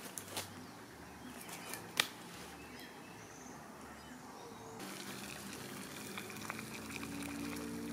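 Quiet woodland ambience with a few sharp clicks, the loudest about two seconds in; then, about five seconds in, water boiling in a metal pot on a small titanium wood-burning stove, a steady hiss with a low steady tone under it.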